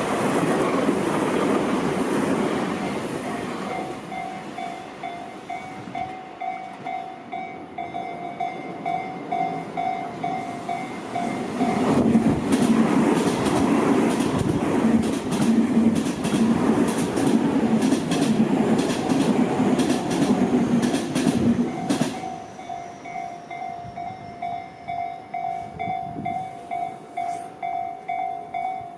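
Level-crossing alarm bell ringing on and on at about two dings a second while Tobu electric commuter trains pass. One train fades away at the start. Another rushes over the crossing for about ten seconds in the middle, its wheels clacking over the rail joints.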